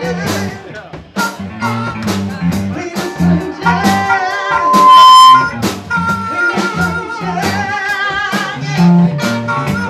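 Live band playing: an amplified harmonica plays over electric guitars, bass and drums. About five seconds in the harmonica holds one loud high note for roughly half a second.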